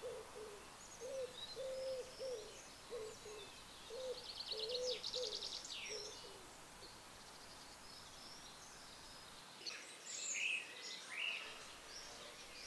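Woodland birdsong: a low cooing call repeated over and over for the first six seconds or so, with higher songbird chirps, a fast trill a few seconds in, and another burst of chirping near the end.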